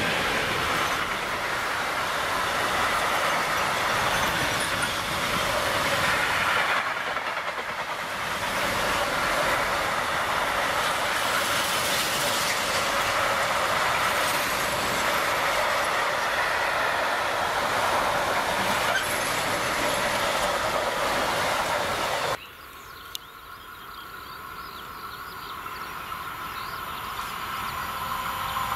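Loaded container wagons of a freight train rolling past close by with a steady rail noise. About three-quarters of the way through, the sound cuts suddenly to a much quieter, distant approaching train that grows louder toward the end.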